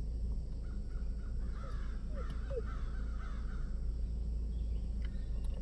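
Low steady rumble of a Ford Ranger driving off-road, heard inside the cab, with a dog panting in the back seat and a few short faint squeaks about two seconds in.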